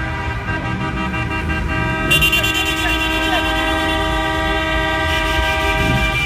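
Many car horns held down at once, a steady chorus of overlapping tones over the rumble of engines in slow traffic; a louder, brighter horn joins about two seconds in.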